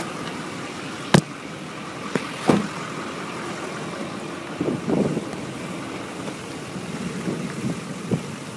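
Wind rushing over a handheld phone's microphone in open country, with a couple of sharp handling knocks about one and two and a half seconds in.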